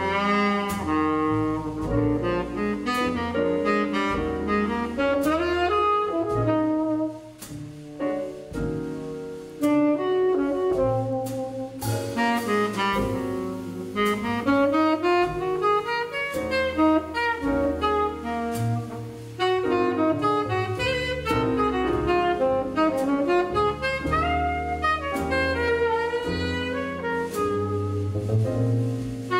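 Jazz quartet playing a ballad: tenor saxophone carrying the melody over piano, plucked upright bass and drums.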